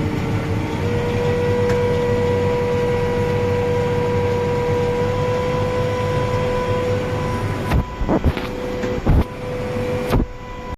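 Farm tractor running steadily with a high, steady whine over the engine rumble, as the tractor works at cutting fodder. A few short clicks come in the last few seconds.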